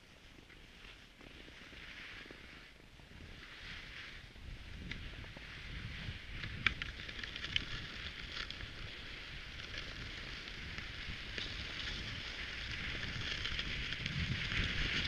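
Cross-country skis hissing as they glide over snow, growing steadily louder as the skier speeds up, with a few sharp clicks. Wind buffets the microphone with a low rumble near the end.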